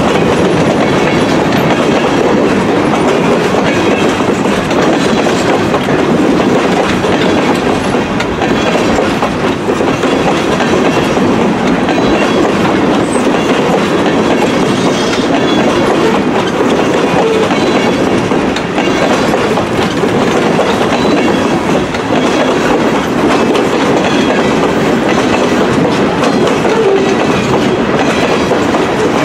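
Loaded and empty freight cars (refrigerated boxcars, boxcars and covered hoppers) rolling past close by: a loud, steady clatter of steel wheels on the rails that holds without a break.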